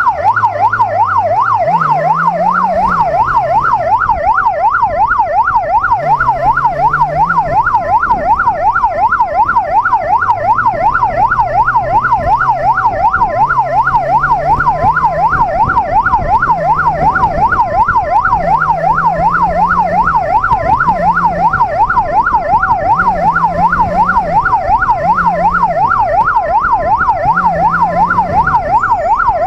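Police motorcycle's electronic siren sounding a fast, continuous rising-and-falling yelp. Beneath it, the bike's inline-four engine climbs and falls back over and over as it accelerates through traffic.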